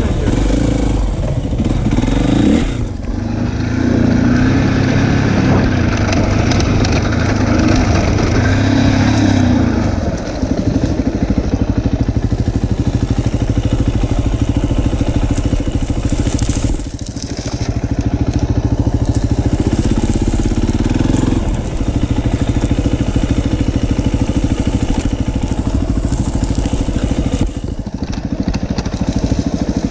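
Enduro dirt bike engine running hard as it is ridden over rough ground, its note rising and falling with the throttle and dropping away briefly several times.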